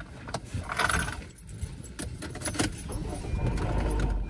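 Car seat belts being pulled out and buckled: belt webbing sliding, metal latch plates clinking and clicking into their buckles, mixed with the rustle of people shifting in their seats.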